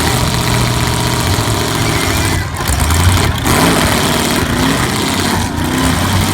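Several V8 demolition derby car engines running loudly together, revving up and down.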